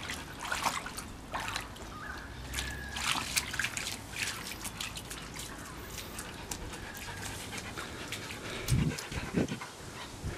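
A husky's paws stepping through wet leaf litter and shallow water on the vinyl floor of an empty above-ground pool: scattered small wet clicks and splashes, with two low thumps near the end.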